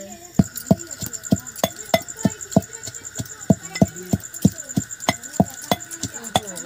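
Ribbed iron rod pounding in a small metal mortar, hand-crushing cooking ingredients: a steady rhythm of sharp metallic knocks, about three a second, starting about half a second in.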